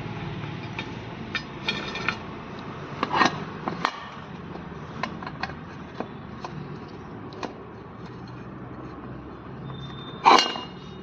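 Scattered metallic clicks and clinks of a spanner or socket on steel while the rear brake wheel cylinder of a Maruti Swift is bolted onto the drum brake backing plate with two 10 mm bolts. A louder clank with a brief ring comes near the end, over a steady low hum.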